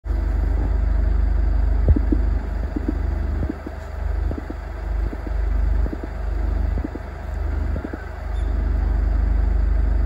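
A low, uneven rumble that swells and eases every second or so, with scattered soft knocks.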